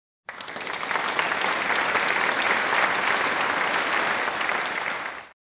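Applause: dense clapping that starts suddenly and cuts off after about five seconds.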